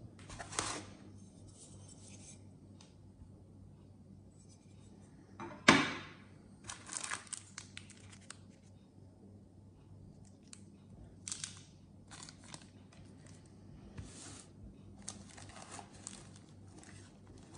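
Plastic wrapping and foam packing crinkling and rustling in short, irregular bursts as a diecast model airliner is handled and lifted out of its box, with one louder, sharp crackle about six seconds in.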